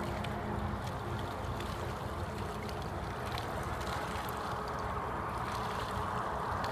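Water lapping against the concrete edge of a tiled pool, heard close to the surface as a steady rushing wash with small scattered splashes.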